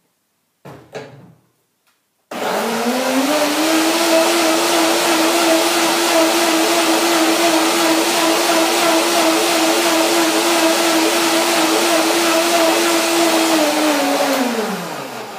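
Countertop blender blending a thick peanut, banana and curry dressing. After a short knock about a second in, the motor switches on suddenly about two seconds in, rises quickly to a steady high speed and runs loudly, then winds down near the end.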